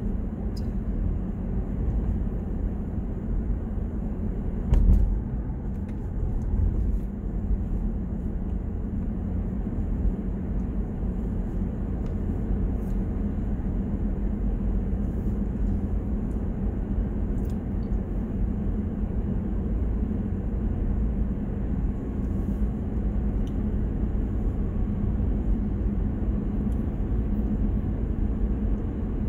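Steady road noise heard inside a moving car's cabin: engine and tyres on asphalt at cruising speed, a low even rumble. A single thump about five seconds in.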